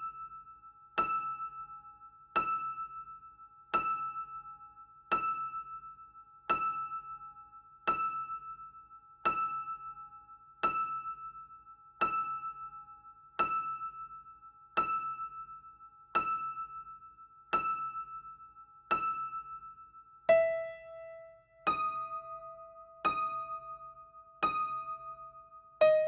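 Solo piano striking a single high note over and over, slowly and evenly, about once every second and a half, each note left to ring and fade. About 20 seconds in, a lower note an octave down comes in and is held under the repeated high note.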